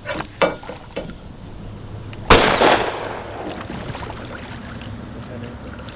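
A single pistol shot a little over two seconds in, sharp and loud, with a short echo fading after it. A few smaller splashes from a big alligator gar thrashing at the surface come before it.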